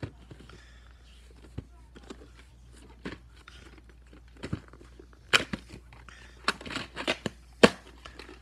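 Plastic VHS clamshell case being handled, snapped open and the cassette taken out: a run of sharp plastic clicks and crackles, loudest about five and a half and seven and a half seconds in.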